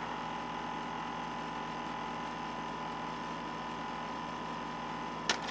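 Slide projector running with a steady fan hum and a thin whine, then a few sharp clicks near the end as the slide mechanism works.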